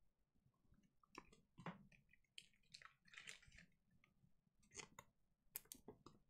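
Faint, scattered clicks and rustles of trading cards being handled and flicked through in the hand, about a dozen small sounds.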